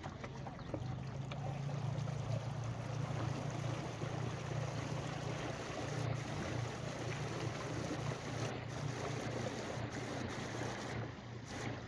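Outdoor wind and choppy water lapping, heard as an even rushing hiss, with a steady low hum that sets in about a second in and fades near the end.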